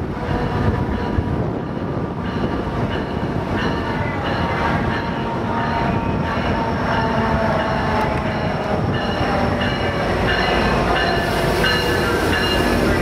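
An Amtrak Pacific Surfliner passenger train, led by an F59PHI diesel locomotive, runs past close by with a steady heavy rumble. From about four seconds in, high thin squealing tones from the wheels join the rumble.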